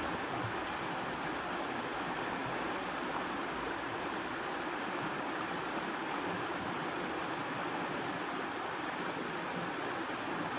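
Flowing water rushing steadily, an even hiss with no breaks.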